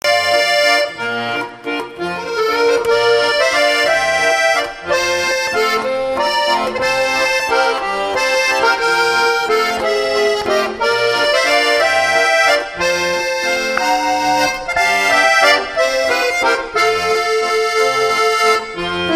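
Instrumental intro music: sustained melody notes over a repeating bass line.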